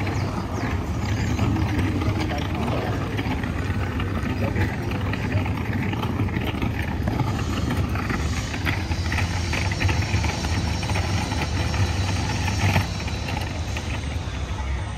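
Busy city street: a steady rumble of traffic with the voices of passers-by and small clatters, and one sharp knock near the end.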